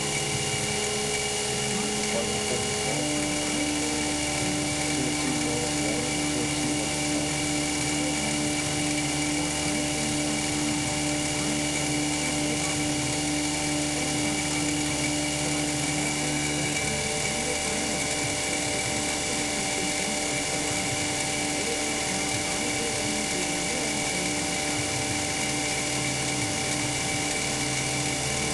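CNC milling machine running its cycle on a stack of five 0.063-inch 5052 aluminium plates: the spindle and cutter make a steady whine at an even level, with the tone shifting about three seconds in and again about seventeen seconds in.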